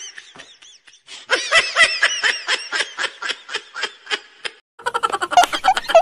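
Dubbed high-pitched laugh sound effect: a fast run of laughing pulses, about five a second, fading away; a second burst of pitched sound starts near the end.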